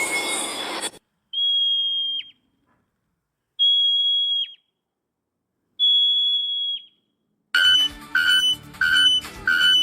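Three long, steady, high whistled notes about two seconds apart, each ending in a sharp downward drop. Near the end a fast, evenly repeating two-pitch beeping pattern begins.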